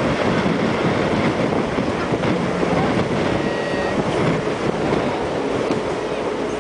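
Catamaran ferry under way: a loud, steady rumble of its engines mixed with water rushing past the hulls, with a faint steady hum underneath.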